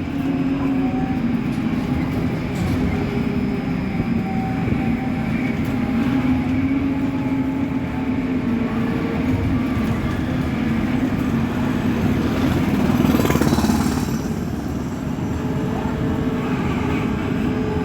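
Trolleybus in motion: the electric traction drive gives off a steady whine of several drifting tones over road and body rumble, with a louder rushing swell about two-thirds of the way through.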